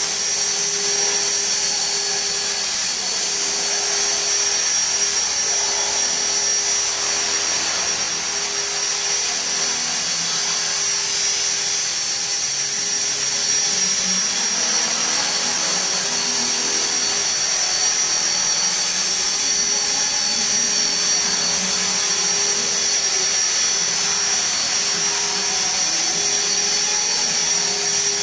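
E-Sky Belt CP electric radio-controlled model helicopter in flight: a steady high whine from its electric motor and drive with the hum of the spinning rotors. The lower tone wavers slightly as the helicopter manoeuvres.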